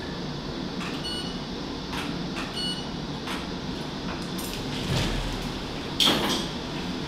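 Operating-room background: a steady hiss with scattered faint clicks, two short high beeps about a second and a half apart, and a brief louder noise about six seconds in.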